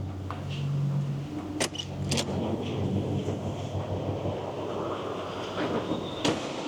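A vehicle engine running steadily with a low hum, and three sharp knocks: one about a second and a half in, another soon after, and a last one near the end.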